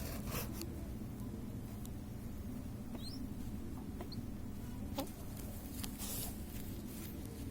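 Young pigeon giving a few faint, short high squeaks, with a couple of light clicks.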